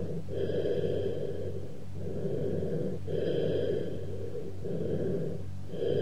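Cavernous bronchial breath sounds heard through a stethoscope: low-pitched, hollow breathing in repeated inspiration and expiration phases with brief pauses between them. It is the sign of an underlying lung cavity with irregular walls or an open pneumothorax.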